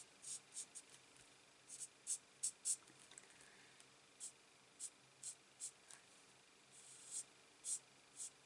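Felt-tip nib of a Stampin' Blends alcohol marker stroking across cardstock while colouring in tree trunks and branches: a run of short, quiet scratches at uneven spacing, about fifteen in all, with a pause of about a second near the middle.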